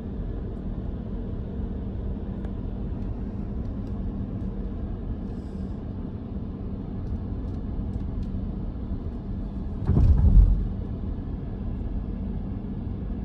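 Car driving: steady engine and road rumble with a faint even hum, and a brief louder rumble about ten seconds in.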